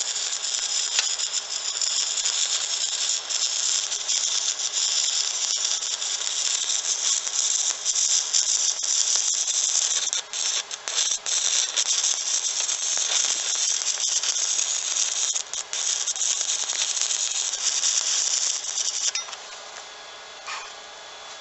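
Stick (arc) welding: the electrode arc crackles and sizzles steadily, full of fine pops, then stops abruptly about 19 seconds in as the arc is broken.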